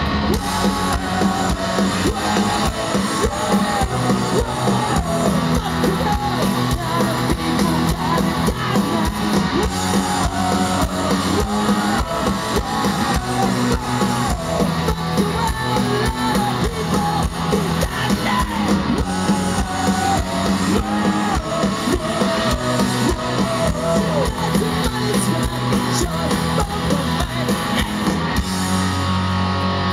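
Punk rock band playing live on guitars, bass and drums, with some singing, recorded from within the crowd. The drum beat drops out near the end while a low chord rings on.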